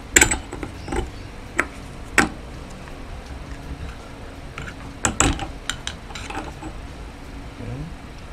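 Screwdriver prying and knocking against the metal top parts of a car's rear suspension strut as they are worked loose: sharp metal clicks and knocks, four in the first two and a half seconds and a quick cluster about five seconds in.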